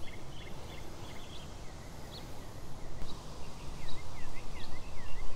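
Wind rumbling on the microphone, rising toward the end, with small birds chirping in the background: short high chips and quick downward-slurred notes, repeated many times.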